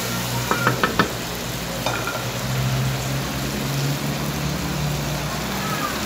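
Food sizzling as it is stir-fried in a wok, with a few quick metal clinks against the pan about a second in.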